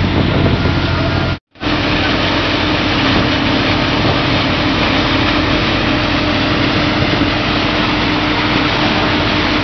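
Steady hum of a fishing vessel's machinery mixed with rushing water, as fish and seawater pour down a chute into a steel hopper. The sound cuts out for a split second about a second and a half in, then resumes unchanged.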